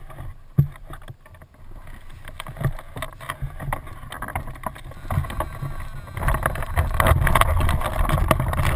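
Wind buffeting an action camera's microphone, with scattered knocks and rustles from the hang-glider harness and frame being handled; the wind noise grows much louder about six seconds in.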